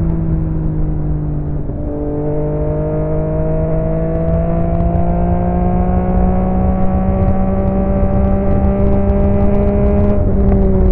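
Yamaha XSR900's inline three-cylinder engine through an aftermarket M4 exhaust, pulling under way. The note dips briefly about two seconds in, climbs slowly in pitch, then drops near the end.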